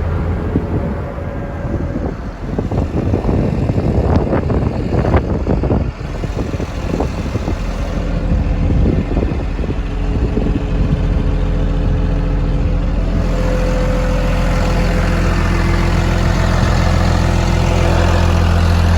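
Komatsu D51PX-22 bulldozer's diesel engine idling steadily. Rustling and a few knocks run over it in the first six seconds or so. After that the engine's hum comes through clear and grows louder toward the end.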